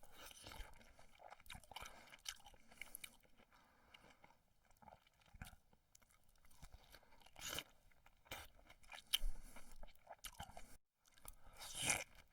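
Dubbed-in chewing and crunching sound effects: irregular close-up crunches and crackles, with a short break near the end.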